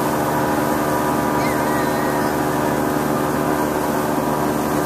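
Boat engine running steadily at slow speed, a constant even hum with wind and water hiss over it.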